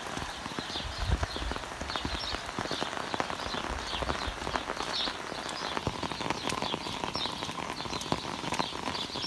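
Guinea fowl complaining with a steady run of short, harsh repeated calls, over close pattering rain.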